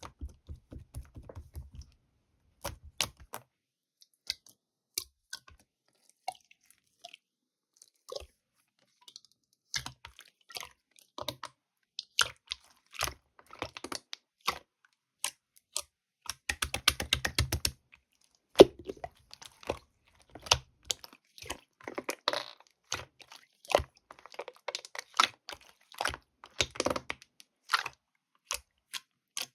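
Clear slime being pressed, poked and stretched by hand, making sticky clicks and small pops in irregular runs, sparse at first and thicker and quicker in the second half.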